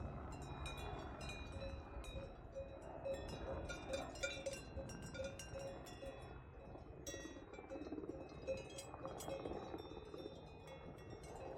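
Bells on grazing livestock clinking, several bells at different pitches, one of them ringing in a quick, even rhythm.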